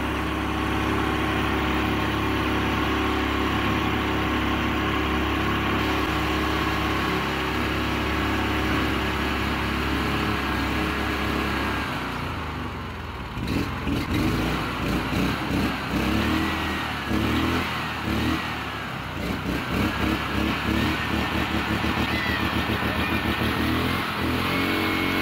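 Honda GX340 11 hp single-cylinder engine running unmounted after its carburettor has been cleaned. It runs at a steady speed for about twelve seconds, then dips and goes uneven, its speed rising and falling as the throttle is worked by hand at the carburettor.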